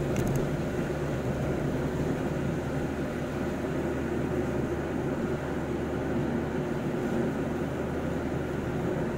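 Steady in-cab driving noise of a vehicle cruising on a highway: a low engine hum under tyre and road noise.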